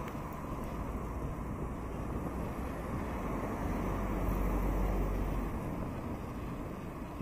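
Street traffic going by alongside, a steady rumble of cars that swells about four seconds in as a vehicle passes close and then fades.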